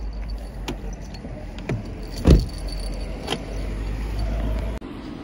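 Wind buffeting the phone's microphone, a steady deep rumble, with a few knocks of handling noise. The loudest knock comes a little over two seconds in. The rumble cuts off sharply near the end.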